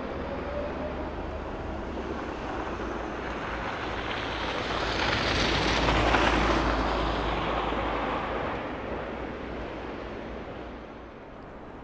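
A car driving past close by on a snow-covered street, its tyres hissing through the snow: the sound swells, peaks about halfway through and fades away.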